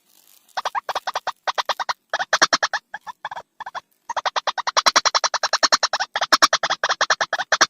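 Recorded lure call of a white-breasted waterhen (ruak-ruak): a rapid run of harsh repeated notes, about eight or nine a second, in bursts with short breaks, starting about half a second in.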